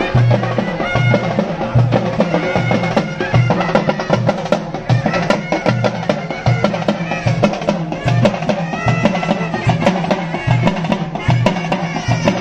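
Live folk drum ensemble of large stick-beaten frame drums and barrel drums playing a fast, dense rhythm, with deep thuds pulsing under sharp stick strokes. A few short, high held notes sound over the drumming.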